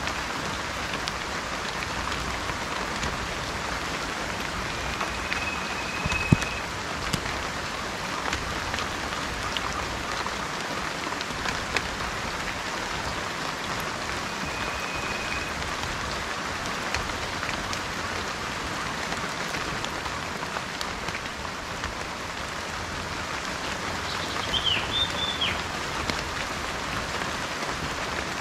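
Steady rain falling, with scattered single drops ticking close by and one sharper drop about six seconds in. A bird gives a few short high whistles and a brief call near the end.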